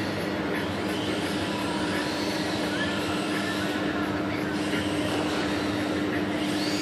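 Faint whine of an MST FXX RC drift car's 10.5-turn brushless motor, rising and falling in short glides as the throttle changes, over a steady low hum and noise.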